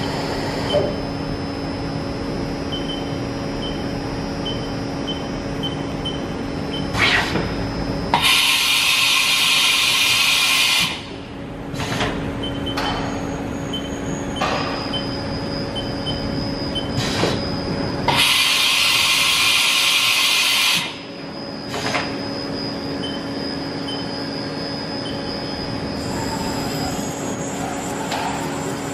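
Haas Super Mini Mill 2 CNC vertical machining center running, its axes moving the spindle head and table with a steady machine hum. Twice it gives a loud hiss lasting about three seconds, with a few clunks around each hiss.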